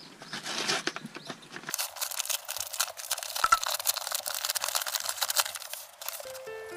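Paper parcel wrapping being torn open and crumpled by hand, a dense run of crackling rustles and rips.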